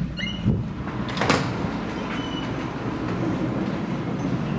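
A cabin door knocking and clicking shut, with a short squeak, in the first second and a half, then the steady low rumble of a cruise ship below deck.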